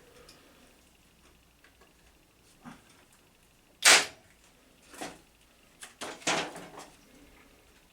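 Parkside PET 25 C2 electric nailer firing a brad nail into wood: one loud, sharp crack about four seconds in. Lighter knocks and clatter from the tool and wood being handled come before and after it.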